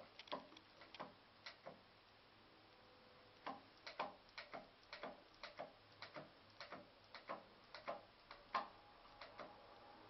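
Caulking gun clicking as it is worked to push sealant out, a run of sharp, irregularly spaced clicks: a few at first, then about two a second from a few seconds in.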